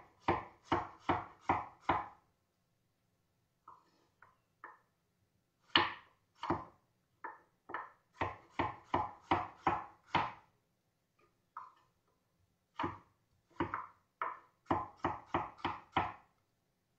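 Kitchen knife chopping sweet potato into cubes on a wooden cutting board: sharp knocks in three quick runs, about three a second, with short pauses and a few lone taps between.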